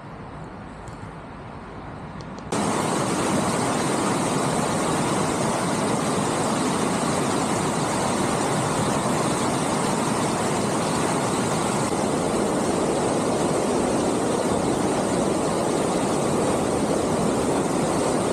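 Flood-swollen River Glonn flowing, then, from about two and a half seconds in, much louder steady rushing of brown floodwater pouring through a weir.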